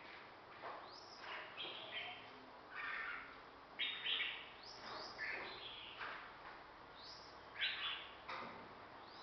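Caged songbirds singing: a run of short, bright whistled phrases, some sweeping upward, about one a second, the loudest near the middle and near the end.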